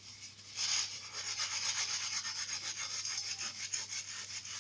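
Steel-wool scourer scrubbing a gas-stove burner cap: a fast run of scratchy back-and-forth strokes that starts about half a second in.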